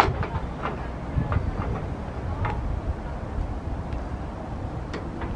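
Outdoor ambience: a low, uneven rumble, with a few light clicks and taps scattered through it.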